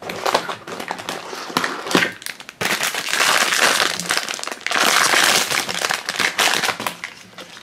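Foil blind bag crinkling and crackling as it is opened by hand, louder from about two and a half seconds in.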